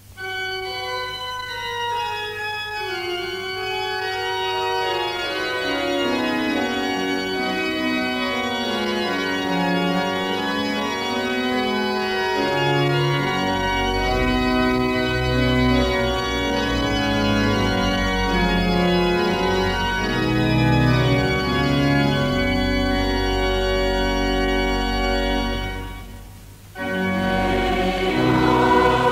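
Church organ playing a prelude of sustained chords, with a melody stepping downward and deep pedal bass notes entering about halfway through; it fades to a brief pause. Near the end the congregation begins singing the psalm together with the organ.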